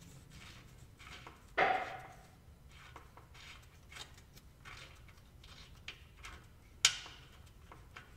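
Small metallic clicks and scrapes as a drain plug is turned out by hand from the rear differential cover of a 2000 Chevy Tahoe, with two sharper clinks, the first about a second and a half in with a short ring, the second near the end.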